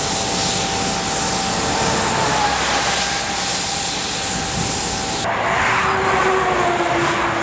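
Cappellotto CapStreet suction truck running its vacuum unit: a steady rushing whine with held tones. About five seconds in it gives way to motorway traffic going by, with pitch falling as a vehicle passes.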